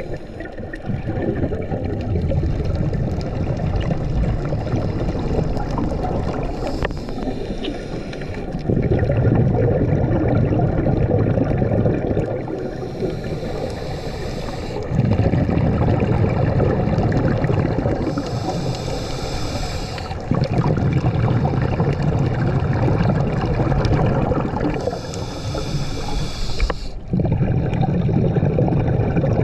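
Scuba diver breathing through a regulator underwater: a short hiss on each inhale alternating with a longer low bubbling rumble on each exhale, repeating about every six seconds.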